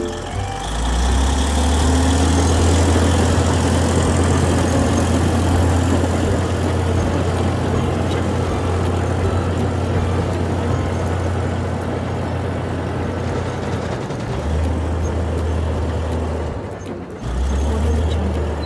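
Heavy engine running steadily with a deep drone, dipping out briefly twice near the end.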